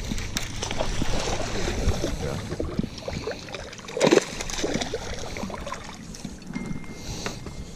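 Hooked bass splashing at the water's surface beside a boat, with one louder splash about four seconds in and smaller splashes and water sloshing around it.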